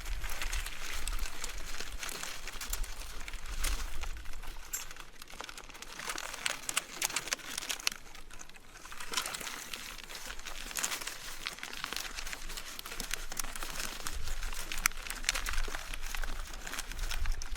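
Mountain bike rolling along a trail: tyres crackling and crunching over the ground with many small clicks and rattles, and low rumbles now and then. It eases off briefly about halfway through, then picks up again.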